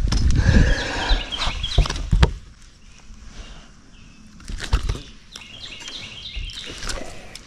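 Birds chirping in short repeated calls, with a low rumble of handling noise and a few sharp knocks in the first couple of seconds.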